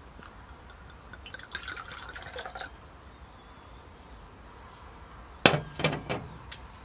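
Wine pouring from a glass bottle into a crystal wine glass with a light trickle. About five and a half seconds in, the glass bottle is set down on a glass tabletop with a sharp, ringing clink, followed by a few lighter knocks.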